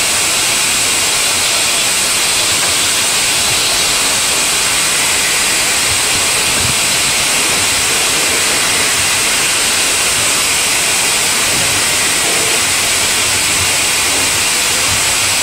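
Steam locomotive hissing steadily as steam escapes, with no exhaust beats.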